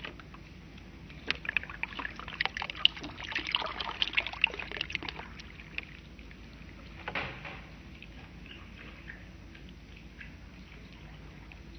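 Water poured from a clear cup into a plastic tub of soil, splashing and trickling onto the plastic floor. A run of crackling spatters comes between about one and five seconds in, and a short splash about seven seconds in.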